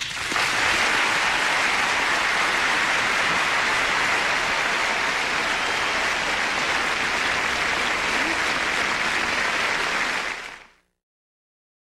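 Large audience applauding steadily, fading out near the end.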